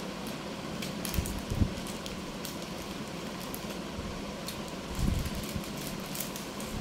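Plastic ice cream wrappers crinkling and crackling as they are handled and torn open, over a steady background hum. A few soft low thumps about a second in and again around five seconds.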